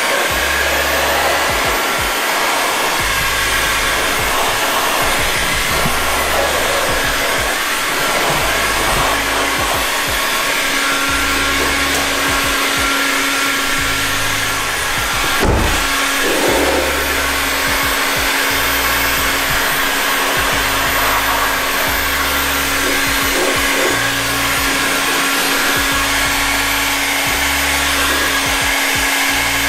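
Handheld electric heat gun blowing steadily, used to warm and seal the edges of paint protection film. Background music with a steady, repeating bass pattern plays underneath.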